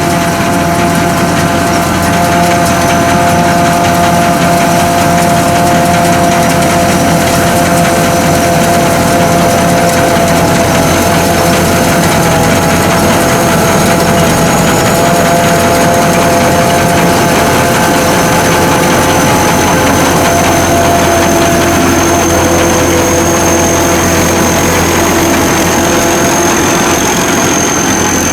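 Sakpattana SS-200 mini combine harvester running steadily: a constant engine drone with a thin high whine above it.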